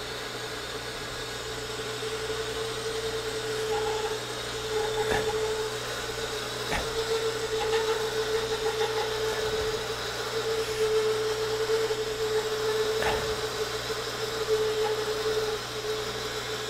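Metal lathe drilling into spinning round stock with a one-inch carbide-tipped spade drill fed under hand pressure from the tailstock: a steady, mid-pitched cutting tone over the machine's running noise, with a few faint clicks.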